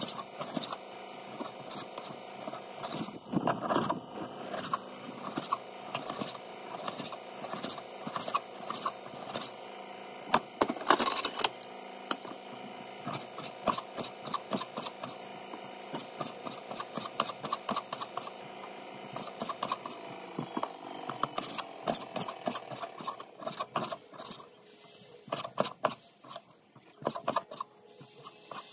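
Kitchen knife slicing raw pork on a wooden cutting board: a run of irregular knocks and taps of the blade against the board, a few louder strikes among them, over a steady background hum.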